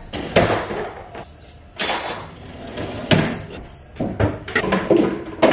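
Kitchen handling sounds as groceries are put away: a cupboard door shutting and items knocked down on the countertop, with a plastic-bag rustle. There are about half a dozen separate knocks and rustles.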